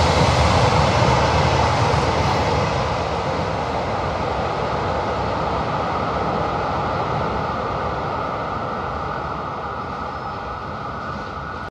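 JR Hokkaido KiHa 261 series diesel limited-express train passing close by and moving away: a steady rush of engine and wheel-on-rail noise that fades gradually as the train recedes.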